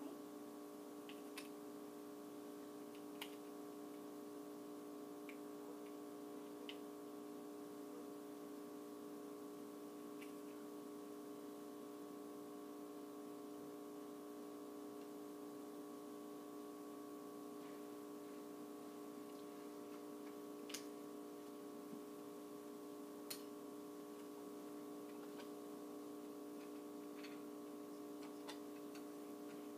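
Quiet room with a faint steady hum of several tones and a few scattered faint clicks.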